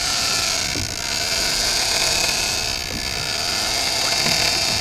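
Big-game fishing reel's drag screaming in a steady high-pitched buzz as line is pulled off the spool: a shark has taken the bait and is running.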